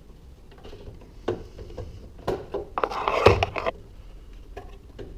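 Metal cover panel being fitted back onto a garage door opener's housing: a few scattered clicks and knocks, then a louder burst of scraping and rattling about three seconds in as the panel is worked into place.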